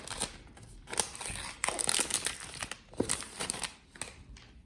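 Smartphone box packaging being torn and crinkled open by hand, in several irregular bursts of rustling as the seal is pulled off the box.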